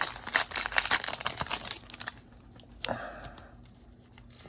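Foil booster-pack wrapper crinkling and tearing as it is pulled open by hand, a dense crackle that dies down after about two seconds.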